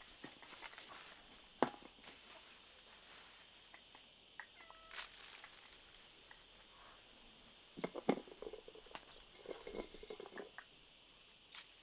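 Steady high insect drone, with a few small sharp clicks and, from about eight seconds in, a run of short rustles and taps from the plastic bag and tin as food is put out for a puppy.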